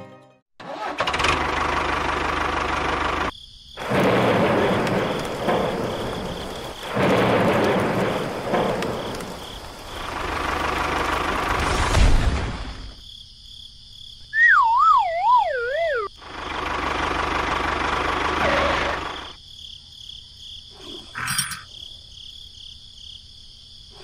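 Edited sound effects for a toy tractor: several separate bursts of a tractor engine revving over a hiss, and a sharp thump about twelve seconds in. A comic falling, wobbling whistle follows, then a couple of small metal clicks near the end.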